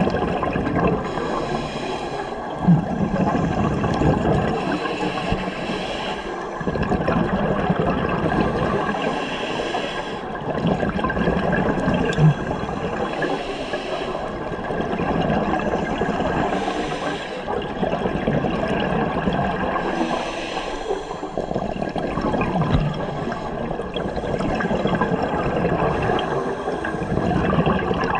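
A scuba diver's regulator breathing underwater: a rush of exhaled bubbles alternating with a hissing inhale, one breath about every three to four seconds, with a couple of brief knocks.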